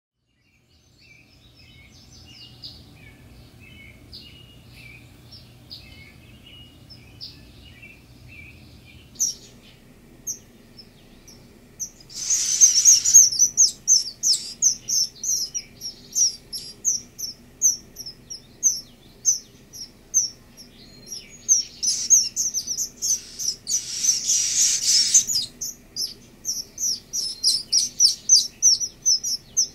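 Eastern kingbird nestlings begging at the nest: a rapid run of high, sharp chips that starts about twelve seconds in and swells twice into a dense, loud burst. Softer, lower chirps come before it.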